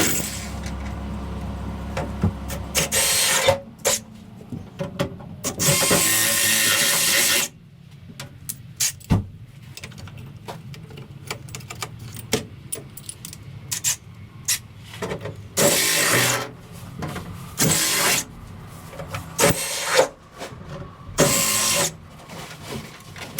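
A power tool run in short bursts of about one to two seconds, several times over, with clicks and knocks of hand work on metal parts between the bursts.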